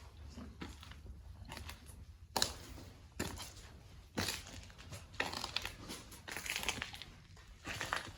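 Careful footsteps crunching and crackling over debris on a wood-and-metal floor, uneven steps roughly a second apart.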